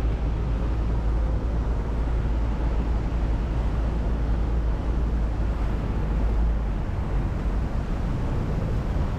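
Steady rushing noise aboard a small tour boat near a waterfall: the boat's motor, churning water and wind together, with a heavy low rumble that eases about seven seconds in.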